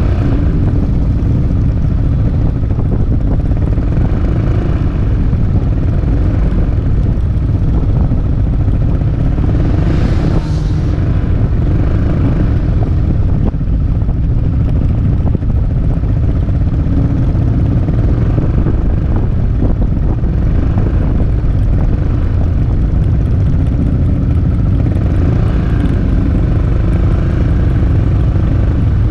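Riding-speed wind rumble buffeting an action camera's microphone, over the steady running of a Peugeot Metropolis scooter's engine and the motorcycles riding just ahead. There is a brief louder rush of hiss about ten seconds in.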